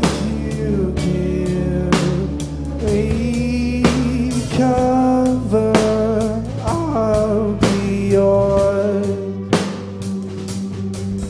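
A live rock band plays a song, with a drum kit keeping a steady beat under guitar.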